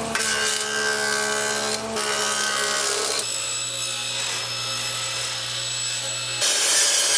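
Woodworking power tools running with a steady motor hum: a jointer planing a rough piece of wood, then a table saw ripping it, its pitch shifting a couple of times.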